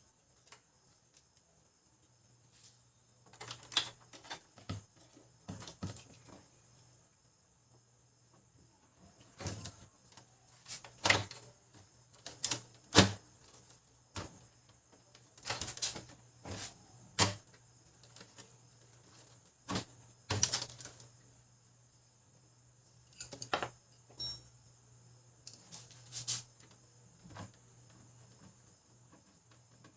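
Irregular clicks and knocks of parts being handled and fitted back into a Brother DCP-L2540DW laser printer during reassembly, over a faint steady hum.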